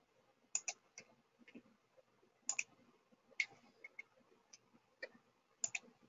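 Faint computer mouse clicks, a dozen or so scattered over a few seconds, several coming in quick pairs.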